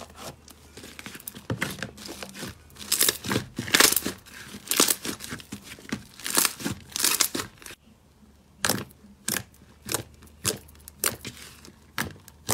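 Hands squeezing, kneading and pressing slime, giving a run of crackling, clicking bursts as air pockets in the slime are squashed, with a brief pause about eight seconds in.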